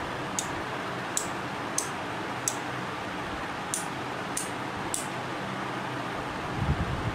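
Small PCB relays on an 8-channel Bluetooth relay board clicking as channels are switched on and off from a phone app: seven sharp single clicks, spaced about half a second to a second apart, over a steady hiss, with a few soft low bumps near the end.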